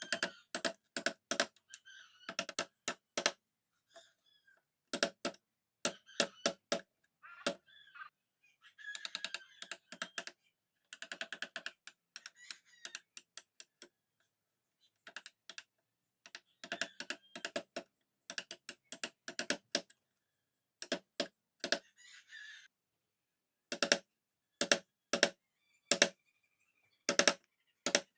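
Wood carving chisel being struck with a mallet: sharp knocks in short irregular runs of several taps, with brief stretches of the blade scraping through the wood between them.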